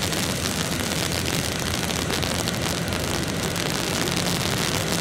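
A large car fire burning: a steady, even rushing noise with faint crackling.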